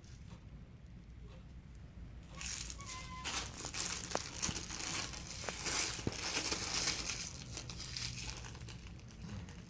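Paper or plastic wrapping crinkling and tearing as it is handled. It starts about two seconds in and goes on for several seconds as a dense crackle.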